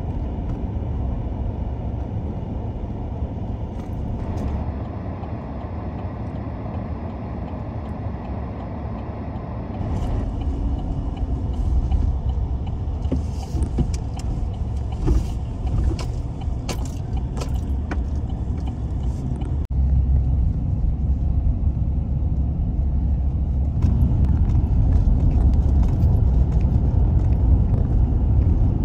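Car driving on the road: a steady low rumble of tyres and engine that grows louder about ten seconds in and again later, with scattered light clicks and rattles through the middle stretch.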